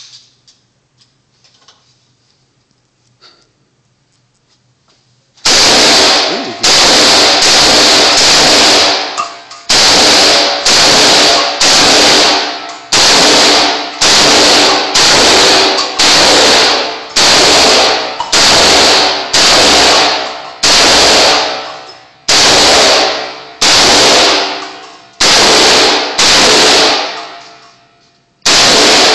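AR-15 rifle firing 5.56 mm rounds in semi-automatic single shots, echoing in an indoor range. After a few seconds of quiet with faint handling clicks come more than twenty shots, a little under a second apart, loud enough to clip the recording. A longer pause near the end is followed by one last shot.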